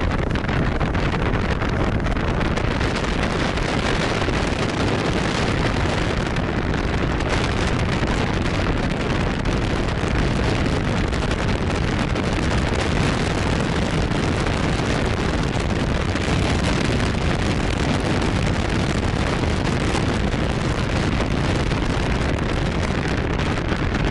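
Steady wind rush on the microphone of a motorcycle rider moving at road speed, over the hum of the BMW's engine and tyres on the road.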